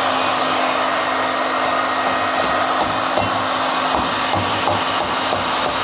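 Heat gun blowing steadily with a faint hum, warming a Lambretta fan housing so that the pressed-in bearing loosens and drops out.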